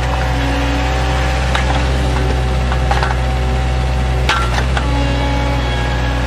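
Compact loader's engine and hydraulics running steadily as its backhoe attachment digs a trench in soil, with a few sharp knocks from the bucket, the loudest about four seconds in.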